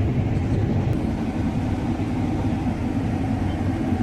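Combine harvester running steadily while cutting wheat: an even, unbroken machine drone.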